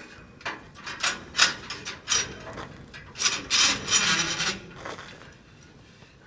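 Irregular metal clicking, scraping and rattling as the knife block of a harvester header's straw chopper is worked into place. It is busiest a little past halfway and dies away near the end.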